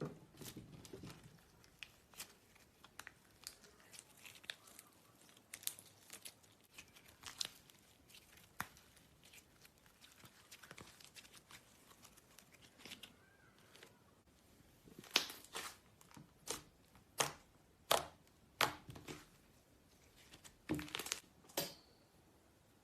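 Slime being stretched and squeezed by hand, giving a run of sharp crackling pops and tearing sounds that come quicker and louder in the second half.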